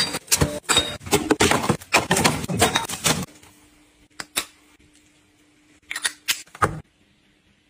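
Plastic packaging and drink cans clattering and crinkling as they are tossed into a plastic bin, stopping abruptly about three seconds in. After that, a few sharp plastic clicks and taps from a clear plastic cosmetic tube being handled.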